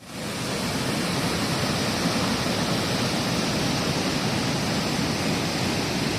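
Steady rushing of a waterfall, fading in over the first half second.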